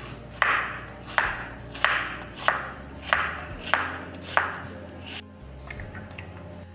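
Kitchen knife slicing an onion on a wooden cutting board: about eight even strokes, roughly one every two-thirds of a second, each cut ending in a sharp tap of the blade on the board. The slicing stops about five seconds in.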